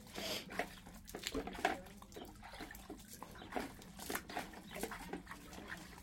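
Shiba Inu splashing in water, a run of irregular splashes and slaps, several sharper ones in the first two seconds and a few more about four seconds in.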